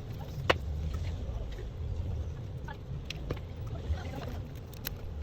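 A steady low hum with scattered small, sharp clicks and taps, the loudest about half a second in.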